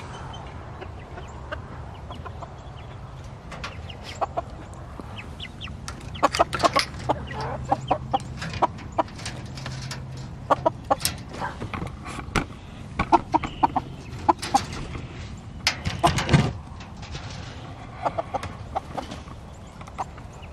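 Backyard chickens clucking in many short, sharp calls from about six seconds on, the loudest burst a little before the end, with the metal clink of a wire-mesh coop door latch being worked as the birds are let out.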